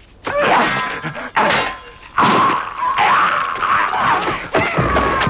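Fight sound effects: a few sharp hits and a grunt, then a woman's long, high yell lasting about two seconds, ending with a low thud near the end.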